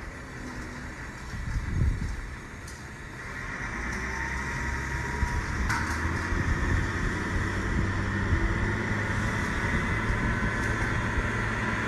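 Steady low rumble of road traffic along a flooded street, with a brief knock about two seconds in.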